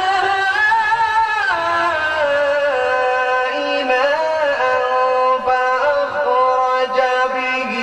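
A man reciting a Quranic verse in the melodic tilawat style into a microphone. He holds long notes that slide slowly up and down.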